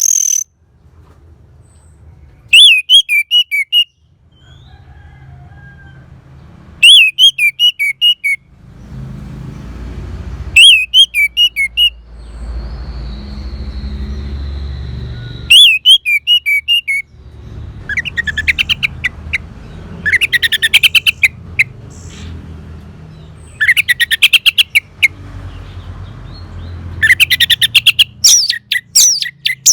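Orange-headed thrush singing: loud short whistled phrases repeated every few seconds, then faster, denser trilled bursts in the second half, over a low background rumble.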